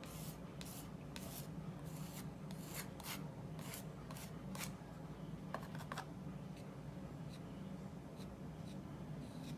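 Paintbrush stroking oil paint across multimedia paper: short scratchy strokes, about two a second for the first five seconds, then fainter and more spread out. A steady low hum lies underneath.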